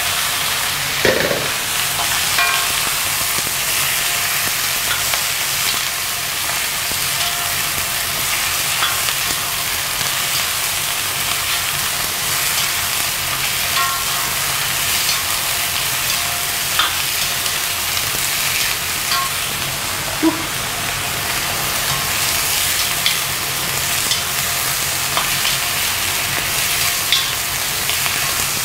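Napa cabbage stalks sizzling in very hot oil in a wok, with a metal ladle scraping and clinking against the pan now and then as they are stir-fried. It is a steady frying hiss with scattered light knocks.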